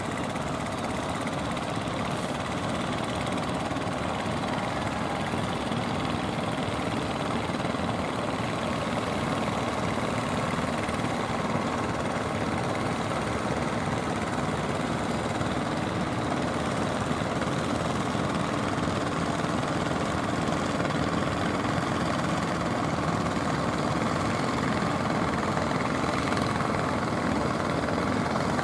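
Fishing boat's inboard engine running steadily under way, with the rush of water and surf around the hull, getting slightly louder near the end.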